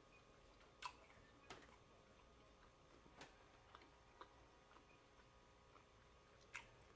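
Near silence with a handful of faint, irregular clicks from a person eating, about five in all, the clearest about a second in and near the end.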